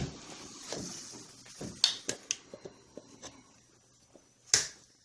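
Light clicks and knocks of hands handling the Rancilio Rocky doser grinder's hopper and parts, with one louder, brief knock about four and a half seconds in.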